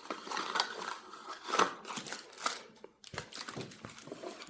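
Paper and cardboard packaging being handled and set aside: light rustling with a few soft knocks, the loudest about a second and a half in and again a second later.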